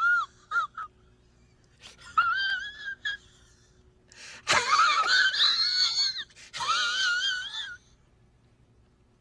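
High-pitched, wavering wails with a strong warble, like a squeaky pitched-up voice, in a few separate bursts: short squeaks in the first second, then longer wails about two, four and a half and six and a half seconds in.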